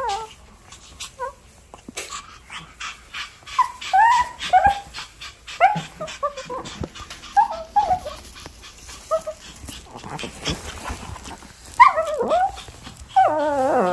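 Maltese puppy whimpering and yipping in many short, high cries that bend in pitch, ending in a longer, wavering whine: a dog's distress at its owner leaving.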